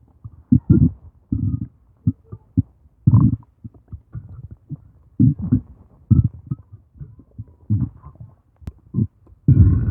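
Human stomach growling: a run of short, irregular low gurgles and rumbles, then near the end a loud, drawn-out burp begins.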